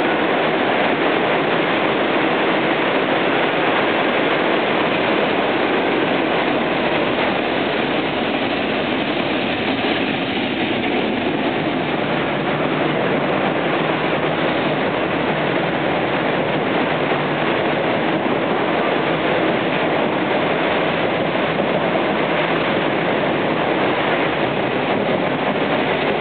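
A train of 25Z passenger coaches running past on the near track, its wheels making a steady, loud rumble on the rails.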